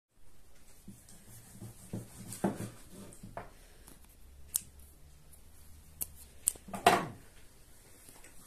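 A wet dog licking and nibbling at her own fur: a scatter of short wet clicks and smacks, the loudest about seven seconds in.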